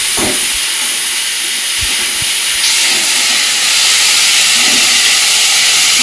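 Salted, chopped banana stem (thor) dropped into hot oil in a kadai and sizzling hard, a loud steady hiss that grows stronger about three seconds in. A few low knocks of the spatula against the pan come near the start.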